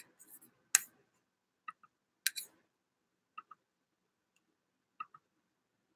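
Faint scattered clicks and ticks: two sharper clicks in the first few seconds, then fainter paired ticks about every second and a half.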